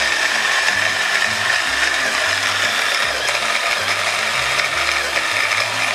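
Electric food chopper running steadily on fresh parsley and mint leaves: a loud whirring hiss with a steady high whine through it.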